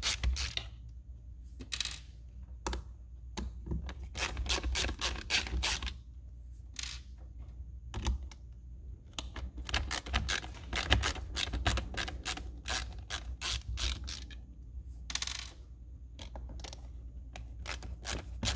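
Hand screwdriver backing screws out of a steering wheel's metal frame: runs of quick clicks separated by short pauses.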